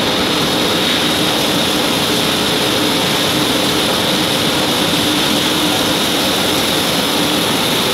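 Breton Huracan multi-blade saw's diamond blades cutting a 12 mm ceramic slab as it feeds along the conveyor: a steady, loud machine noise with a high whine.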